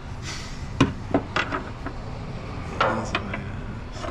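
Steel pry bar knocking against the exhaust hanger bracket as a rubber exhaust hanger is levered off its mounting pin: a few sharp metallic knocks, with a short scrape about three seconds in.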